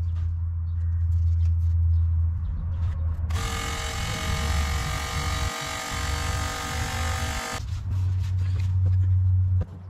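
Toyota LandCruiser 200 Series (VDJ200) 4.5-litre V8 turbodiesel idling, heard from underneath the vehicle, running so that its transmission pump pushes old automatic transmission fluid out through the disconnected cooler line during a flush. For about four seconds in the middle, a steady buzzing whine with many overtones starts and stops sharply over the idle.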